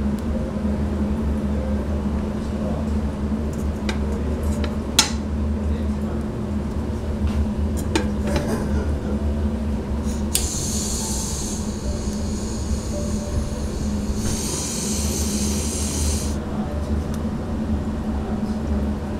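Kitchen sounds over a steady low hum: a few sharp clinks, then two hissing spells of about two seconds each in the second half.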